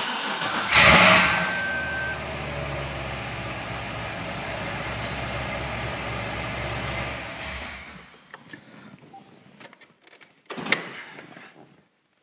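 A 2007 Corvette Z06's 7.0-litre LS7 V8 cranks and catches. It is really loud for a second, then settles into a steady idle that cuts off about eight seconds in. A brief high tone sounds just after it catches, and a sharp click comes near the end.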